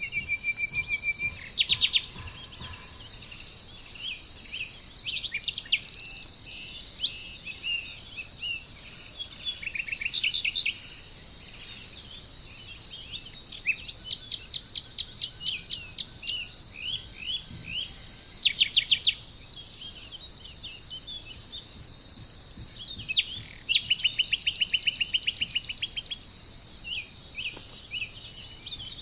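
Wild birds calling with short chirps and rapid trilled note series, over a steady high-pitched drone of insects.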